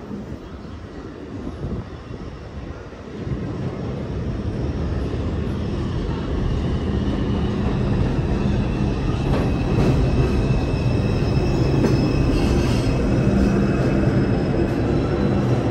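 New York City Subway 4 train running on the rails, a steady rumble that gets louder about three seconds in. From about halfway, faint high squeals of steel wheels on the rail ride over it.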